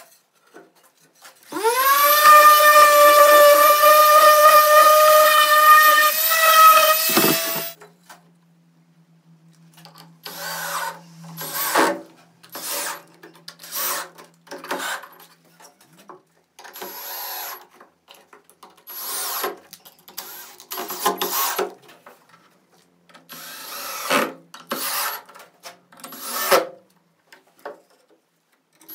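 An electric power tool spins up to a high whine, runs steadily for about six seconds and stops. Then come many short, irregular bursts of workshop tool noise, each a second or less.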